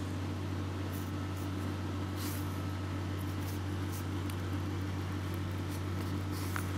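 Steady low hum of kitchen machinery, with a few faint soft clicks.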